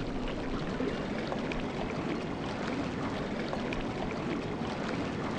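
Rushing river water: a steady, even wash of flowing water.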